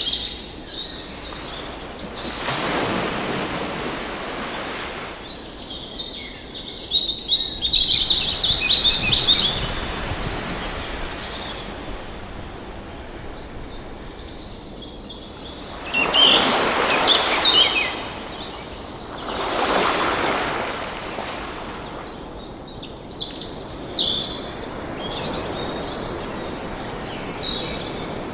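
Songbirds chirping and trilling, repeatedly, over swells of rushing noise from waves washing in every several seconds.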